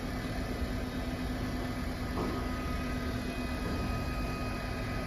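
BGA rework station's hot-air blower and fans running steadily with a low hum after the heating cycle is started. About two seconds in, a thin high whine joins and holds.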